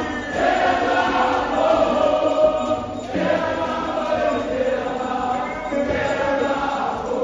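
A group of voices singing a traditional dance song together in unison, chant-like phrases, with a short break between phrases about three seconds in.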